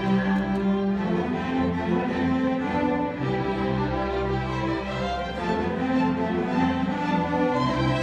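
Student string orchestra of violins, violas, cellos and double basses playing slow held chords that change every second or so over a low bass line.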